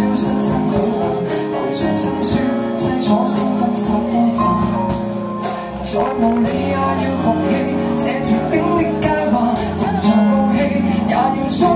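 Live band playing a Cantopop song: guitar, keyboard and drum kit with regular cymbal hits, and a man singing into a microphone.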